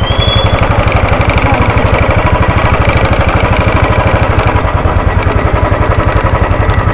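Royal Enfield Classic 350 single-cylinder engine running at low speed, with a steady, even beat. A brief high chirp sounds right at the start.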